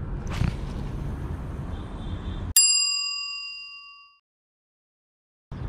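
Steady outdoor background noise cuts off abruptly about two and a half seconds in. A single bright bell-like ding takes its place and fades out over about a second and a half, followed by dead silence: an edited-in transition sound effect.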